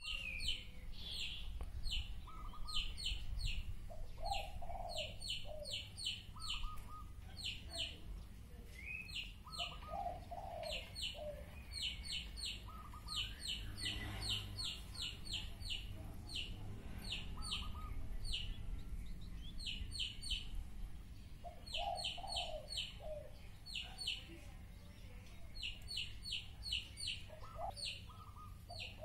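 Small birds chirping in quick runs of short, high notes throughout, with lower, bending calls every few seconds.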